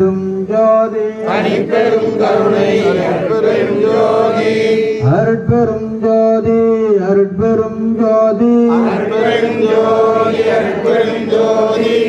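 A group of men chanting a Tamil devotional hymn in unison from hymn booklets, led by one voice on a hand-held microphone. The chant moves in long held notes that step between a few pitches.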